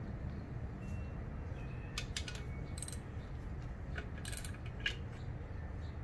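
Light metallic clinks and jingles in a few short clusters, about two seconds in and again around four to five seconds in, from gloved hands and tools working on a metal exhaust manifold and catalytic converter assembly, over a steady low background hum.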